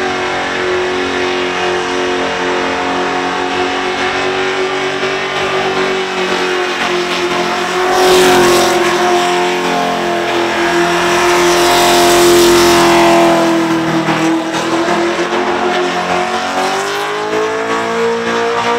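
Supercharged engine of a VR Commodore ute held at high revs through a burnout, rear tyres spinning and smoking on the bitumen. The revs sag a little about three-quarters through, then climb again near the end. A louder rush of tyre noise swells about eight seconds in and again around the middle.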